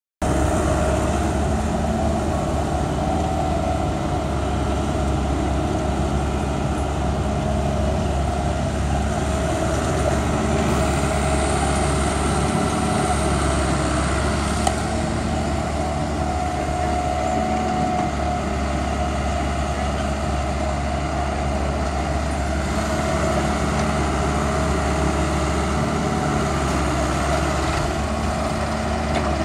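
Diesel engines of a wheeled excavator and a farm tractor running steadily while the excavator loads the tractor's trolley, a constant low engine rumble.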